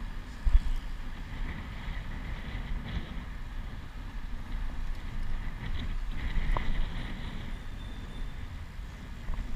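Wind buffeting the microphone of a camera riding on a moving bicycle, a steady rumble over the noise of the bike rolling on pavement, with a single thump about half a second in.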